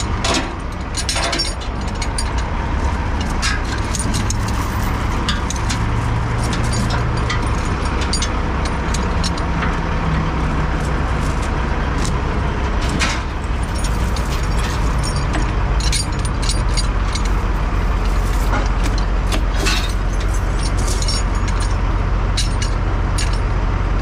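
A heavy truck engine running steadily, with scattered sharp knocks and clanks over it.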